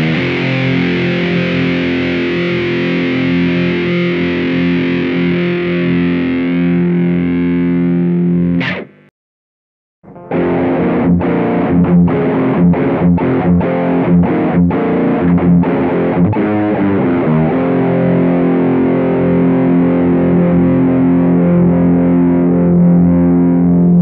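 Distorted electric guitar played through a NUX Plexi Crunch pedal set for a Marshall-style crunch, a chord left ringing for about nine seconds and dying away. After a second of silence it switches to a Mooer Cruncher pedal: a run of short muted chugs, then a chord held ringing.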